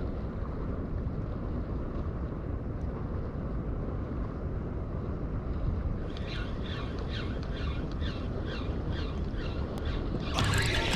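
Wind buffeting the microphone in a steady low rumble, with a run of faint, evenly spaced ticks a little past the middle. Music comes in near the end.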